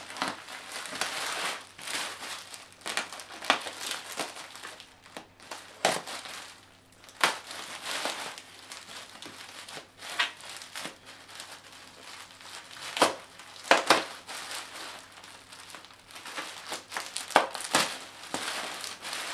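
Plastic bubble wrap crinkling and rustling as it is pulled and unwrapped by hand, with frequent sharp crackles and snaps.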